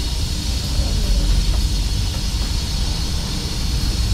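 A car engine running steadily: a low, even rumble with a constant hiss over it.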